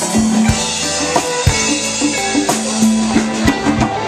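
Live rock band playing an instrumental passage between sung lines: electric guitars, bass and a drum kit keeping a steady beat, with no singing.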